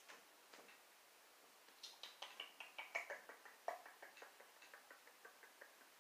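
A quick run of faint small clicks and taps, about five a second, starting about two seconds in and lasting about four seconds.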